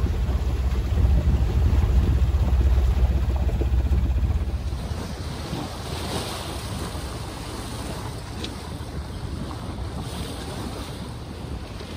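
Wind on the microphone and water washing along a sailboat's hull as it moves through a calm sea. A heavy low rumble in the first four seconds or so drops away suddenly, leaving softer wind and water noise.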